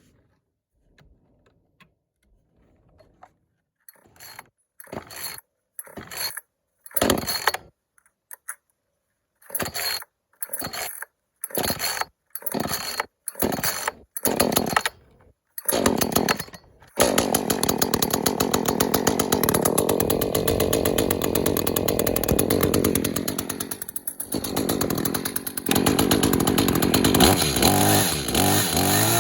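Echo CS-310 30.5 cc two-stroke chainsaw being pull-started for the first time: a long string of short bursts as the recoil starter is yanked over and over. After a dozen or more pulls, a bit over halfway through, the engine catches and keeps running, dipping briefly once and rising in pitch near the end.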